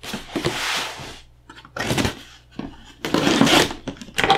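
Utility knife slicing through the packing tape on a cardboard shipping box: two scraping cuts, each about a second long, with a short tap between them.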